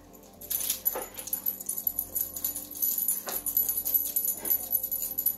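Continuous, quick light metallic jingling, with a few soft thumps of footfalls on carpet.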